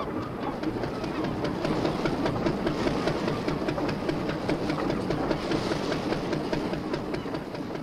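Fishing boat's engine running steadily at the quay, a rapid, even chugging.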